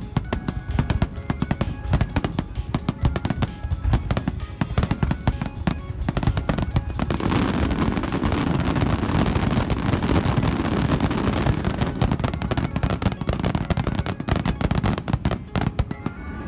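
Fireworks bursting in rapid succession, sharp bangs and cracks with a dense crackling barrage in the middle. Music plays along underneath.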